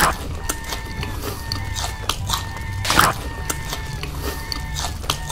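Close-up eating sound effects of a sausage: a loud bite right at the start and another about three seconds in, with many short chewing clicks between them, over quiet background music.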